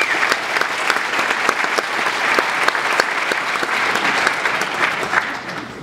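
Audience applauding: dense clapping from many hands that dies away near the end.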